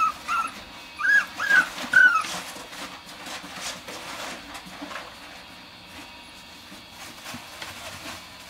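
Young puppy whimpering: about five short, high, arching whines in quick succession over the first two seconds. After that there is only soft rustling, like shredded paper bedding being shifted.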